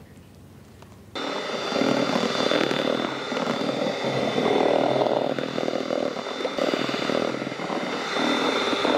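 Electric mixer grinder motor running, switched on about a second in and cut off abruptly just before the end, with a steady whine over the whir of the mix being blended.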